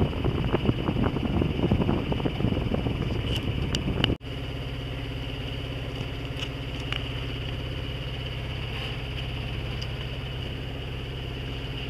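Wind buffeting the microphone, then after a sudden cut about four seconds in, a sailboat's engine running steadily while it motors on calm water with no sail up.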